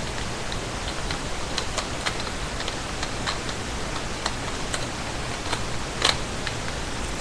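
Small clicks and taps of a lens being worked onto the mount of an Olympus 35mm film camera, with a sharper click about six seconds in, over a steady hiss.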